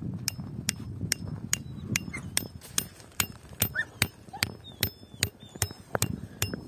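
The poll of a hatchet hammering a thin metal tent stake into the ground: a steady run of sharp metallic knocks, about two or three a second, each with a brief ring.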